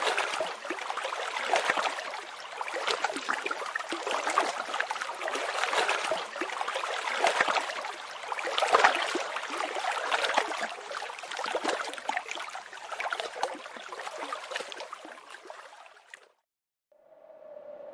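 Running water, as of a stream, with many small gurgles and splashes in a continuous rush; it fades out and stops near the end.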